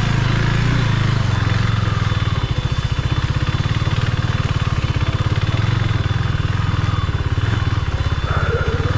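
KTM 390 Duke's single-cylinder engine running steadily with a fast, even pulse as the motorcycle rides along.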